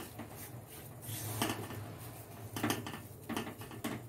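Silicone spatula stirring and scraping whole-wheat flour roasting in ghee around a steel kadhai, about five uneven strokes in four seconds, over a steady low hum.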